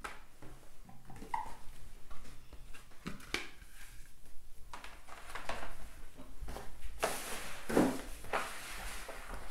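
Cards and a cardboard game box being handled on a table: scattered light taps and rustles, with a longer, louder rustle about seven seconds in.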